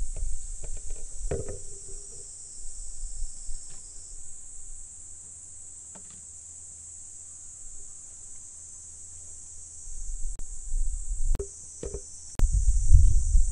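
Steady high-pitched chorus of insects, with a few light clicks and knocks. A low rumble comes in about ten seconds in and grows loudest near the end.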